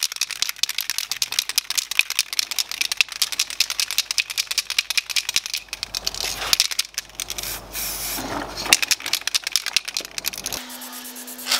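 Aerosol spray paint can being shaken hard, its mixing ball rattling rapidly inside to mix the paint before a coat is sprayed.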